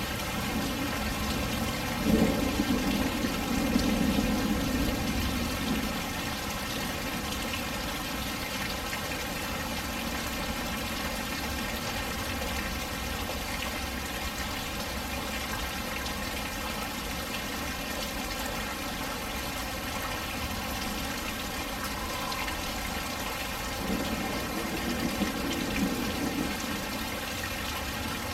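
Steady heavy rain falling, with water pouring and splashing. A louder, lower swell comes about two seconds in and dies away by about six seconds, and another comes near the end.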